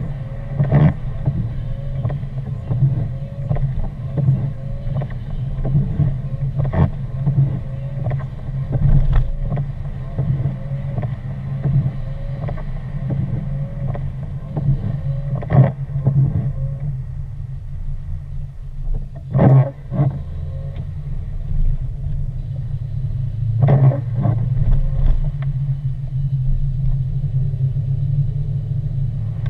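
A car driving on a wet, slushy road, heard from inside the cabin: a steady low rumble of engine and tyres, with a few short knocks at uneven intervals.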